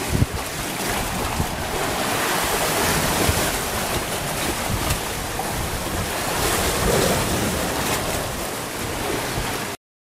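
Lake Superior waves washing against the rocky bedrock shore, with gusty wind buffeting the microphone. There is a short thump just after the start, and the sound cuts off abruptly near the end.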